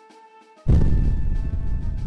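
Soft background music, then about two-thirds of a second in a sudden deep boom, a transition sound effect, that dies away slowly under the music.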